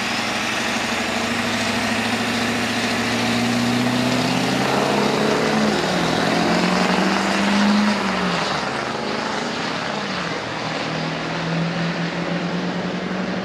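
Lifted Ford F-250 pickup accelerating hard down a drag strip. Its engine note climbs and drops back as it shifts up, with shifts at about 4, 8 and 13 seconds in.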